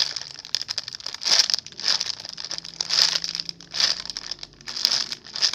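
Crinkly plastic packaging pouch of a jumbo squishy crinkling and rustling as it is handled and turned over, in repeated bursts about once a second.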